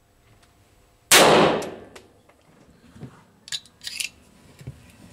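A single pistol shot about a second in, its echo dying away over most of a second, followed by a few light clicks.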